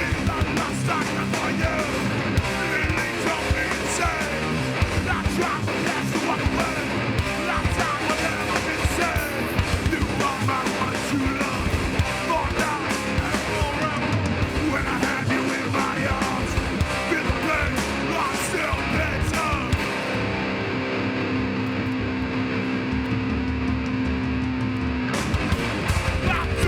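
A hardcore punk band playing live: distorted electric guitars, bass and pounding drums with shouted vocals. About 20 seconds in the cymbals stop and a held chord rings for about five seconds before the full band comes back in.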